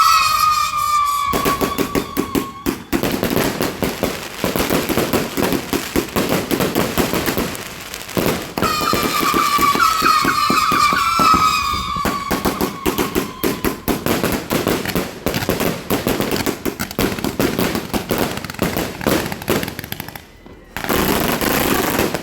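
King of Flames 260-shot fireworks cake firing: a rapid, continuous barrage of crackling pops. Falling whistles sound twice, at the start and about nine seconds in, and there is a brief lull near the end.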